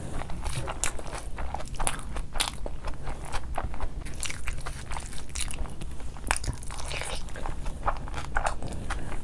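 Wet chewing and lip-smacking on a mouthful of fried rice and curry, as irregular sharp clicks and smacks a few times a second, along with fingers squishing through rice on a plate.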